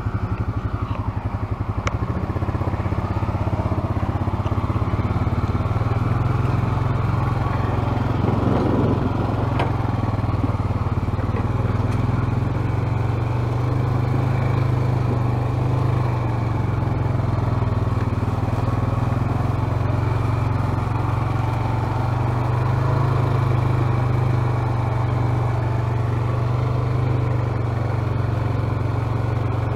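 ATV engine running steadily at low speed, heard from on the machine, with an even low hum throughout.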